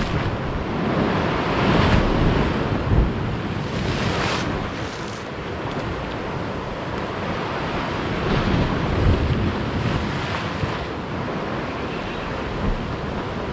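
Sea waves washing against the rocks, with wind buffeting the microphone as a low rumble. The wash swells and eases a few times.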